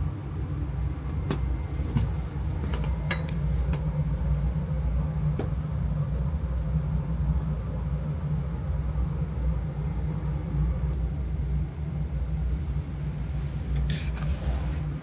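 Cat purring close to the microphone: a steady, deep rumble with a few faint clicks over it.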